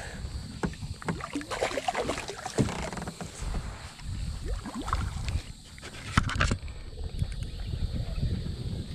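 Irregular clicks, knocks and rustles of a fishing rod and reel being worked from a plastic kayak while a hooked bass is fought, over a low rumble. A sharper cluster of knocks comes about six seconds in.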